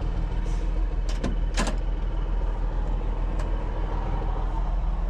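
Diesel truck engine idling steadily, with a few sharp clicks about a second and a half in and again after three seconds.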